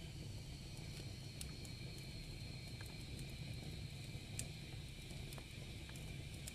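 Wood fire in a fireplace crackling faintly, with scattered sharp pops at irregular times over a low steady rumble.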